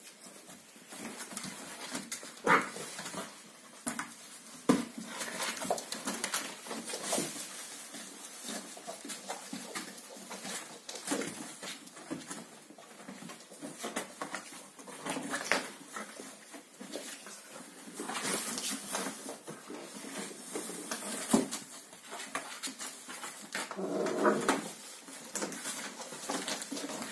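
Seven-week-old Kooikerhondje puppies playing: irregular knocks, scratches and claw-scrabbling on a hard floor and against a cardboard box, with occasional small whimpers and yips.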